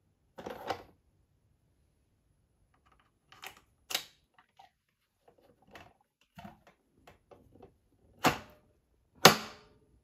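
Fingers tapping on a hard object: a string of irregular sharp taps and clicks, with the two loudest near the end about a second apart.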